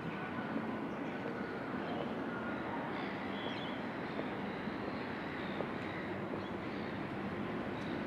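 Steady hum of engines running, with a few faint higher tones over it.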